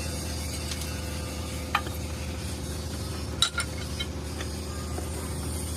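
An engine running steadily with a low hum, with a few sharp metallic clinks of tools or parts over it, the loudest about three and a half seconds in.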